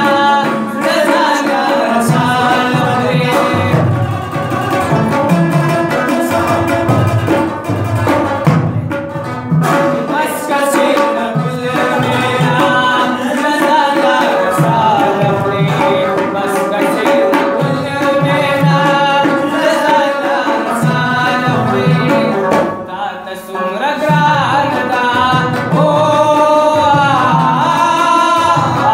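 Live Pashto folk music: a rabab plucking a melody over a steady hand-drum rhythm. The music dips briefly about two-thirds of the way through, then picks up again.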